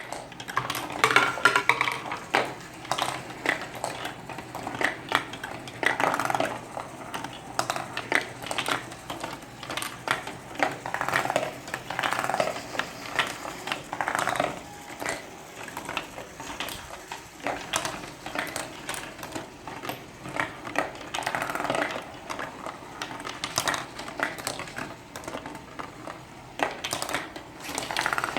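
Marbles rolling and clattering through a marble-moving automation kit, with irregular clicks and clacks all the way through.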